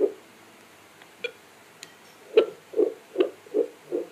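Fetal heartbeat played through a fetal doppler's loudspeaker as a rhythmic whooshing pulse, about two and a half beats a second (roughly 150 a minute). One beat sounds at the start, then it drops out for about two seconds with a couple of faint clicks, and regular beats resume a little over two seconds in.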